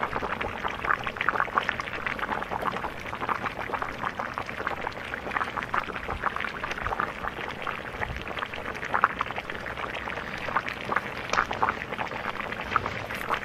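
Hot meat juices sizzling and bubbling in a cast-iron cauldron packed with heated stones, a steady crackle of many small pops.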